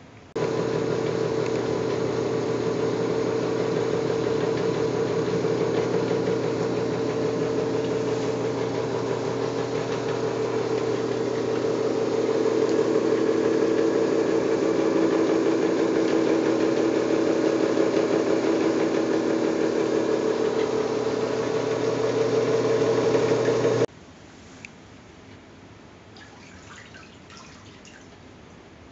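Bench drill press running steadily while a coring bit is fed into a human femur bone slab, a constant motor hum with several fixed tones. It starts suddenly and cuts off suddenly about five seconds before the end.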